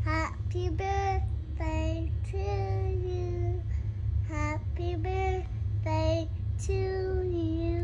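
A young girl singing, a run of short and held notes, over a steady low hum.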